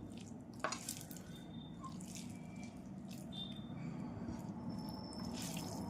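Wet eating sounds of fish curry with rice: scattered soft squishy smacks and clicks, with one sharper click about half a second in, over a steady low hum.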